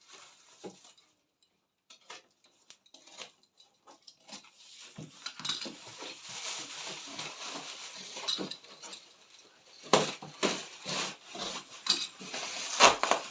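A cardboard box and its packaging being opened by hand: scattered clicks at first, then steady rustling and scraping from about five seconds in, with sharp knocks about ten seconds in and near the end.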